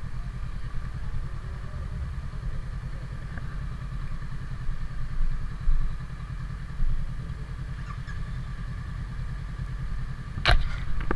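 Honda CB500X parallel-twin motorcycle engine running steadily at idle, a fast even pulsing throb. A sharp clack sounds near the end.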